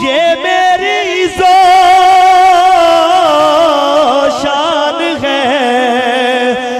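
A man singing an Urdu devotional manqabat in praise of Husain, drawing out long, wavering held notes between lines, amplified through a microphone and loudspeaker.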